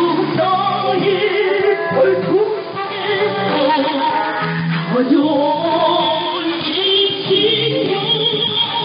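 A song with singing over instrumental backing, played on a North Korean shortwave radio broadcast. The received audio is narrow, with nothing above about 5 kHz.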